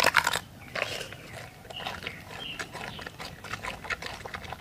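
Giant panda biting and chewing a fresh bamboo shoot: a run of crisp crunches, the loudest right at the start.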